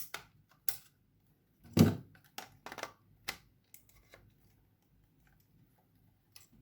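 Clicks and knocks of a Canon Canonet 28 film camera and a Sunpak flash being handled as the flash is fitted onto the camera's shoe, with one louder knock about two seconds in and a quiet spell before a last click near the end.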